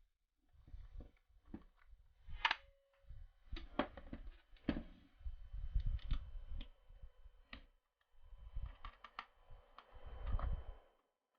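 Allen wrench turning out the pistol grip screws of an airsoft G36: scattered small clicks and knocks of the tool and screws against the gun's body, with low handling and rubbing noise between them.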